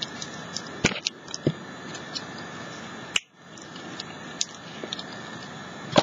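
Small clicks and taps of craft items and tools being handled on a wooden tabletop, over a steady hiss. The hiss cuts out briefly about three seconds in.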